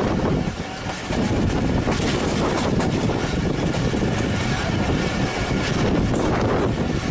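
Steady running noise of a passenger train heard from an open coach doorway, with wheels rumbling on the track and wind on the microphone.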